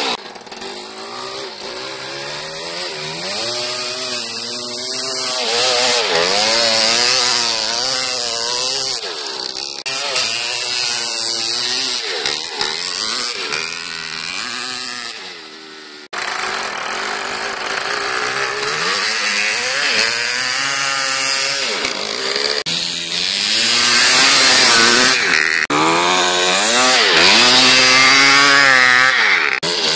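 1990 Kawasaki KX250 single-cylinder two-stroke engine running with no silencer, revving up and down over and over as the bike is ridden. It drops back a little just before the middle, then comes back loud and is loudest in the last few seconds.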